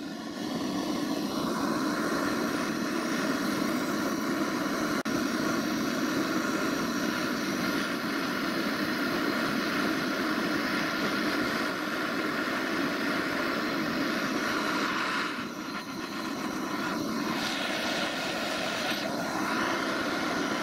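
Gas blowtorch flame burning with a steady rushing sound while it heats a brass valve body for silver soldering. The sound dips briefly about fifteen seconds in and then carries on.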